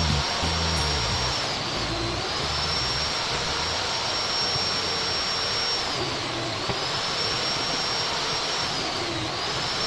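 High-speed electric power tool running with a loud whine and rushing noise. Its pitch dips briefly three times as the tool takes load, then recovers.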